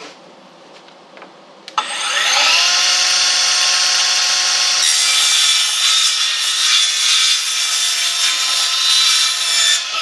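Electric power saw starting about two seconds in, its motor whining up to full speed and then running steadily as it cuts a wooden board to length.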